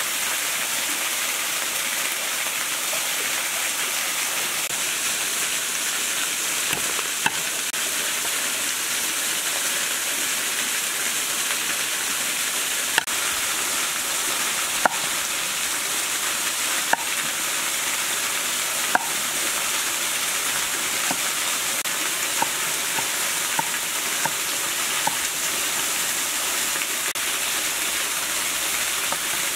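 A cleaver slicing galangal on a wooden chopping board: sharp knocks about every two seconds, then a quick run of lighter taps, over a steady hiss.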